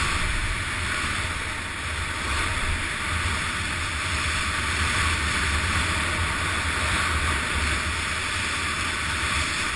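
Wind buffeting the camera's microphone at speed, a steady low rumble, under a continuous hiss of sliding fast straight down packed, groomed snow.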